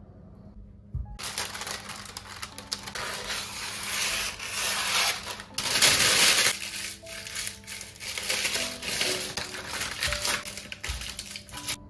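Sheet of baking paper crinkling and crackling as it is crumpled and pressed by hand into a glass baking dish. It starts about a second in, is loudest around six seconds in, and stops just before the end.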